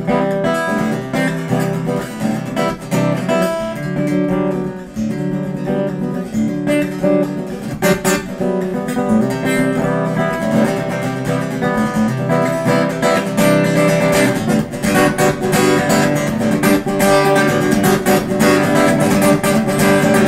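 Background music led by strummed acoustic guitar, growing busier with more frequent sharp beats in the second half.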